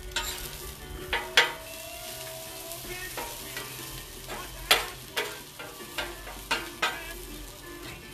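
Onions sizzling on a Blackstone flat-top steel griddle while a spatula scrapes and clacks against the cooking surface to mix in fajita seasoning. The clacks are sharp, the loudest about a second and a half in and just before five seconds in.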